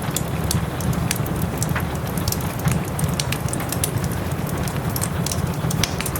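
Wood fire in a fireplace crackling with many quick irregular pops, over a steady hiss of soft rain and a low rumble.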